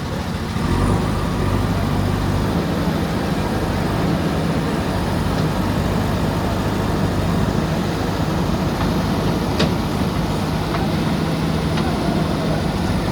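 JCB backhoe loader's diesel engine running steadily under work, getting louder about a second in and then holding at that level. A single short knock sounds about two-thirds of the way through.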